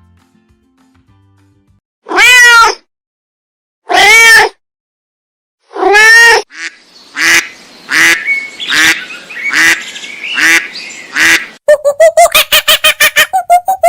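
Animal calls: three long, drawn-out pitched calls about two seconds apart, then a run of shorter calls, and near the end a fast series of short repeated calls at about four to five a second.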